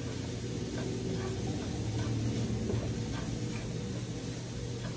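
Wooden spatula stirring shredded vegetables and meat in a frying pan: soft, irregular scrapes and taps over a light frying hiss, with a steady low hum underneath.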